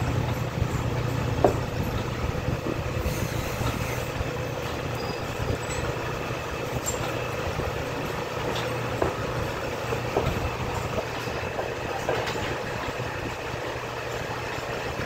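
Steady low machinery hum over a constant noisy background, with a few light metallic clicks as the hydraulic cylinder gland and parts are handled.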